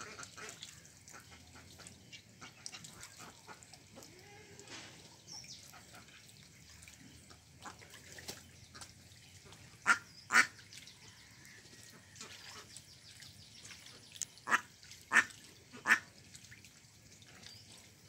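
Domestic ducks quacking: two loud quacks about ten seconds in, then three more a few seconds later, over faint background calls.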